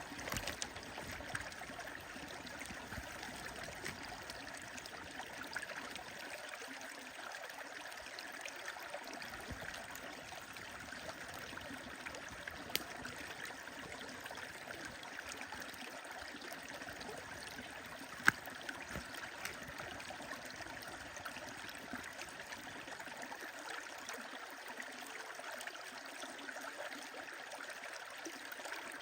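A stream running steadily, with a wood fire crackling over it in scattered sharp pops, the loudest about two-thirds of the way through.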